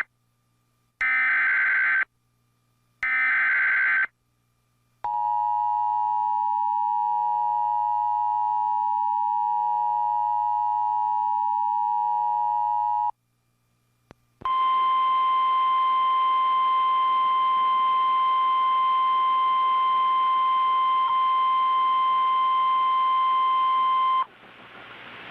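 Start of an Emergency Alert System warning: the last of three one-second EAS/SAME header data bursts, which warble, then the EAS two-tone attention signal held for about eight seconds. After a short gap comes the steady 1050 Hz NOAA Weather Radio warning alarm tone for about ten seconds, and radio static hiss rises near the end.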